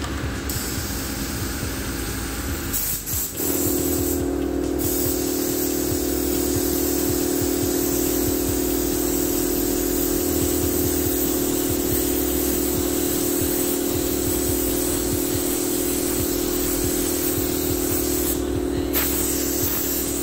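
Air-fed paint spray gun hissing as it sprays paint onto a bus body panel, the hiss breaking off briefly twice. A steady machine hum comes in abruptly about three seconds in and runs on under it.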